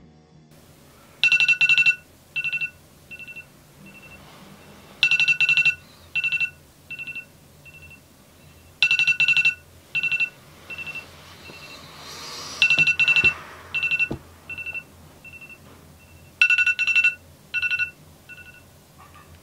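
Electronic wake-up alarm beeping: a fast trill of beeps, then a run of single beeps that fade away. The cycle repeats about every four seconds, five times.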